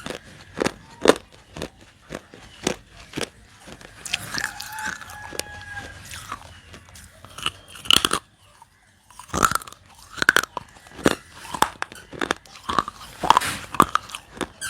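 Close-miked biting and chewing of baked clay, sharp crunches coming about two or three a second, with a brief pause a little past the middle.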